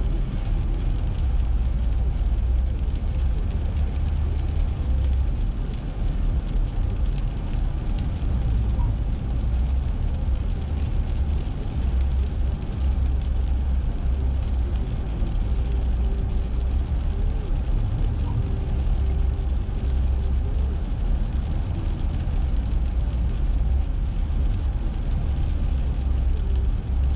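A car driving on a wet road, with a steady low rumble of road and tyre noise.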